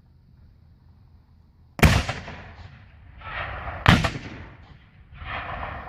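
Two loud black-powder gun blasts, about two seconds apart, each trailing off in a rolling echo.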